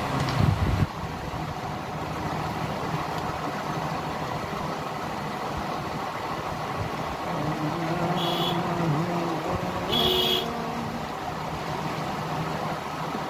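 Steady background road-traffic and engine noise, with a short knock near the start and two short high-pitched beeps about eight and ten seconds in.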